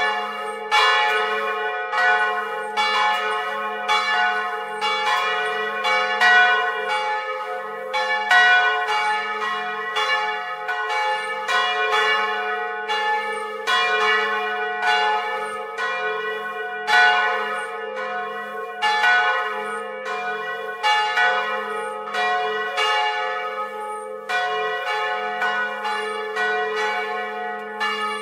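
Two swinging bronze church bells, one of them cast in 1772, rung together on their original clappers: strikes come about once a second, out of step with each other, over a steady ringing hum.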